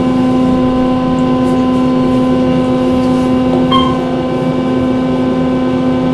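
Otis Series 1 hydraulic elevator car in motion: a steady, even hum. A short high blip sounds about four seconds in.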